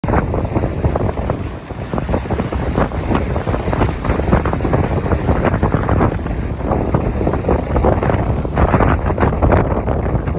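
Sea waves washing, with heavy wind buffeting the microphone: a loud, steady rushing noise with a deep rumble that flickers with the gusts.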